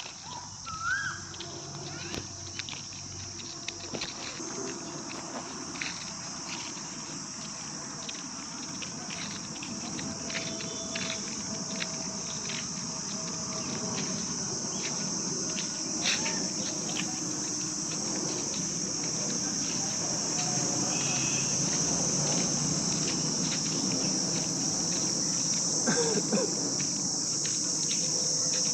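Steady, high-pitched insect chorus of crickets or cicadas, growing gradually louder toward the end, with a few faint scattered clicks.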